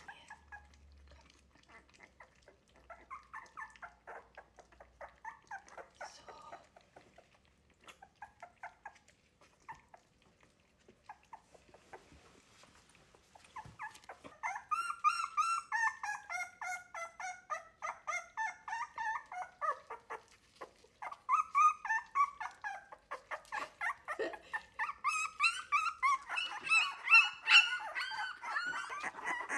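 Three-week-old wire-haired miniature dachshund puppies whimpering and squealing in quick, repeated high cries that start about halfway through and grow louder and more overlapping near the end, the pups protesting at being weaned onto milk from a bowl instead of their mother. Before the crying, faint wet smacking from a puppy lapping at the milk bowl.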